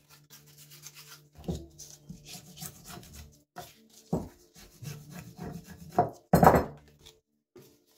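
Woodworking at a bench: birch bark pieces rustle in the hands, then a small hatchet blade is worked into a piece of wood on a wooden board, giving a run of knocks and scraping. The loudest scrape comes about six and a half seconds in.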